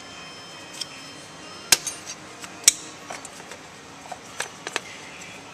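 Distributor cap being unclipped and worked off by hand: a scatter of sharp plastic and metal clicks, the two loudest about two seconds in and a second later, then softer clicks near the end.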